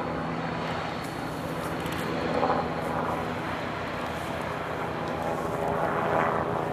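Boeing 787 Dreamliner's jet engines running as the airliner rolls along the runway after landing: a steady engine noise with a held hum and whine, swelling briefly twice.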